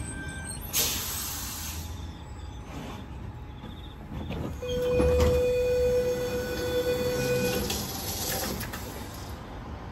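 Sydney Trains Tangara electric train at the platform: a sudden hiss of air about a second in, a steady tone for about three seconds midway, and hissing again near the end.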